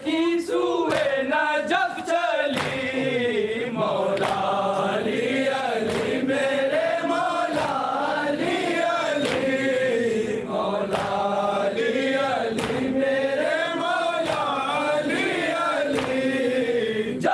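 A crowd of male mourners chanting a nauha together in a rising and falling melody, with sharp beats keeping time about every two-thirds of a second.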